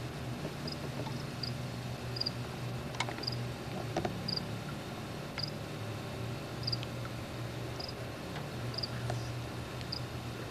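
Crickets chirping, a short high chirp about once a second, over a steady low hum.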